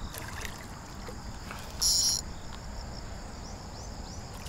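Insects chirping steadily in high, thin tones, with one louder, short high-pitched buzz about two seconds in.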